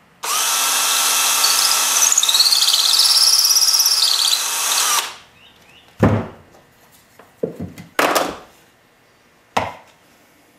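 Cordless drill running for about five seconds as an 11/64 bit bores a pilot hole through a soft pine brace, with a high squeal that rises and falls in the middle of the run. Then a few separate knocks as drills are put down and picked up on the bench.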